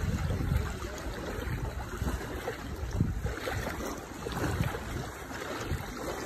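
Wind buffeting the microphone, heard as an uneven low rumble that swells and fades, over small waves lapping at a sandy shore.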